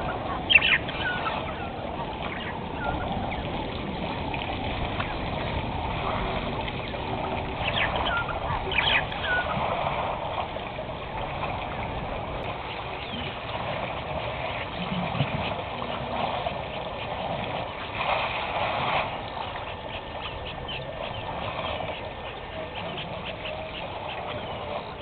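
Waterhole ambience: elephants wading and drinking, with water splashing. Water birds call a few times, with short sharp calls near the start and around a third of the way in.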